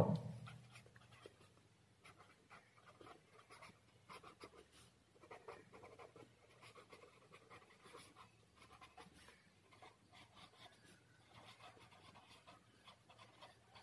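Pen writing on a paper pad: faint, irregular scratching strokes as a line of handwriting is written.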